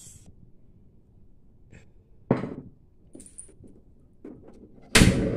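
Scattered light clicks and knocks of handling, with one louder thunk about two seconds in. Near the end, a loud, steady rushing noise cuts in suddenly.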